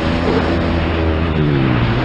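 Motocross bike engine running hard under the rider, its pitch swinging with the throttle, and the revs falling in the second half.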